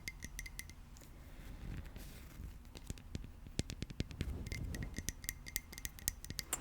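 Quick runs of sharp, close-up clicks: a cluster at the start, scattered clicks through the middle, and a denser run over the last two seconds.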